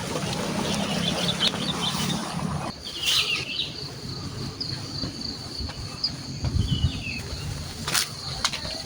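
Rural outdoor ambience: a broad rumbling noise with a low hum cuts off abruptly about a third of the way in. Then a steady high insect drone takes over, with short bird chirps and two sharp clicks near the end.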